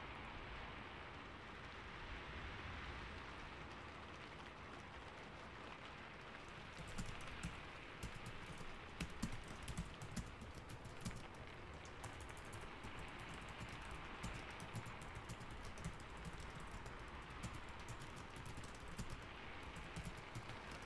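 Steady rainfall with computer keyboard typing: a clatter of keystrokes starts about seven seconds in, busiest for a few seconds, then continues more sparsely over the rain.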